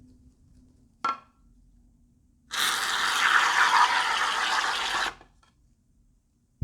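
Aerosol can of Barbasol shaving cream dispensing: a steady hiss of foam spraying out for about two and a half seconds. A short sharp click comes about a second before it.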